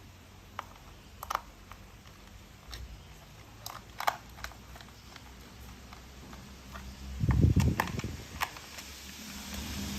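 Scattered light clicks and taps of plastic toy train parts being handled and fitted together, with a louder rustle about seven seconds in and a low hum starting to rise near the end.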